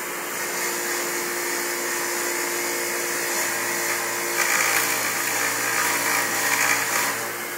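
Ryobi bench grinder running with a steady hum, a wire wheel spinning on it. About halfway through, a cast silver bar is pressed to the wire wheel and a loud scratchy hiss rises for a couple of seconds as the wheel scrubs the borax glass off the bar.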